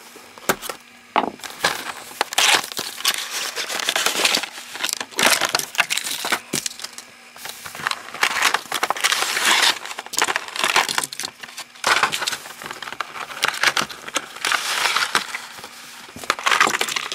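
Toy train boxes being unpacked: cardboard and clear plastic packaging crackling, crinkling and tearing in repeated bursts, with scattered sharp clicks.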